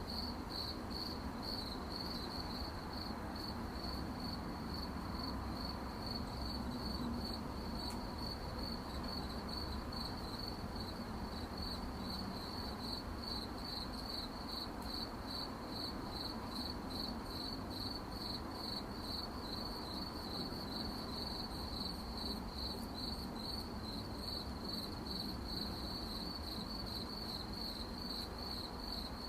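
Crickets chirping steadily in one high, evenly pulsed chirp that repeats without a break, over a low, steady background noise.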